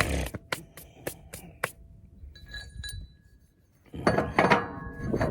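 Steel parts of a disc harrow clinking and knocking together: a quick run of sharp metallic taps, a faint ring, then a louder clatter of knocks and scraping near the end.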